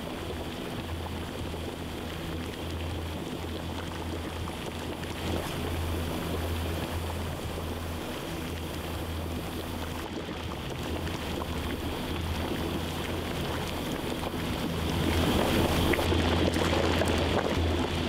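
Large gas stove burners running steadily under big aluminium stockpots of anchovy broth, a low, even rushing noise that grows louder about fifteen seconds in.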